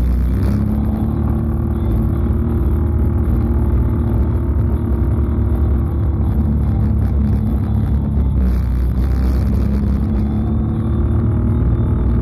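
Can-Am Outlander 650 XMR ATV's Rotax V-twin engine running through an aftermarket MBRP muffler, cruising at a steady pace with a steady low exhaust note.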